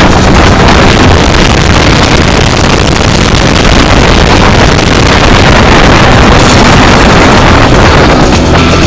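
Car engine and wind and road noise heard from inside the cabin while lapping a race track, recorded so loud that it is overloaded into a steady, distorted roar.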